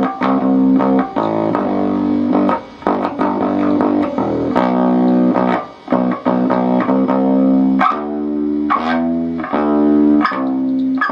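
Electric bass guitar played through an Epiphone Studio 15B bass amp turned up high: a run of plucked, sustained notes changing every half second to a second and a half. Behind the notes is a hiss that rises with the volume, which the player puts down to the cable or the custom bass's passive pickups.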